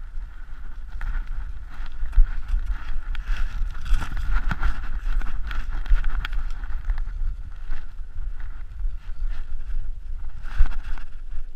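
Rumbling and rubbing of a GoPro strapped to a weimaraner's chest as the dog moves through snow and dry cattails, with crackling and rustling of stiff grass brushing the camera and the dog's fur.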